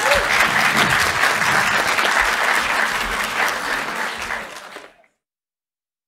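Audience applauding in a hall, a dense steady clapping that fades out near the end.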